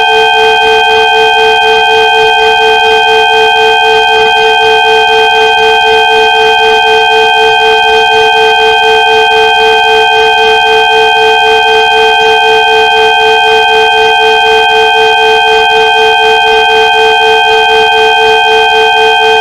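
Electronic 'healing frequency' tones for sound therapy: several steady pitches held together without change, the lowest and loudest a mid-pitched hum, all with a fast, even pulse.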